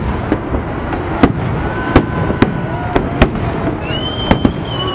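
Fireworks display: shells bursting in a rapid run of sharp bangs, about one every half second, over a steady rumble of reports. A steady high whistle starts near the end.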